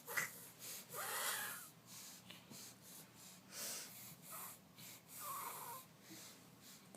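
Sniffling and snorting breaths through the nose, in about ten short, irregularly spaced bursts, a few of them with a brief pitched squeak.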